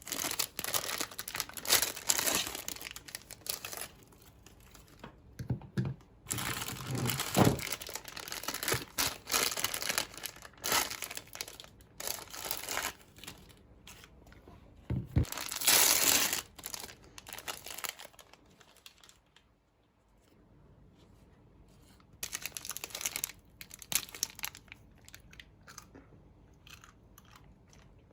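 Irregular bursts of crinkling and crunching with short pauses between them, from ice creams and their wrappers being handled and fed through a meat grinder.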